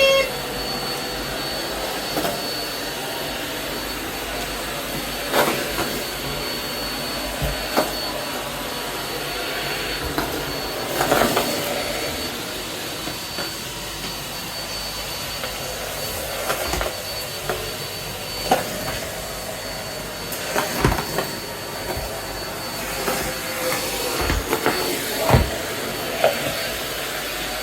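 Numatic Hetty cylinder vacuum cleaner running steadily while sucking up confetti, with scattered short knocks and clicks.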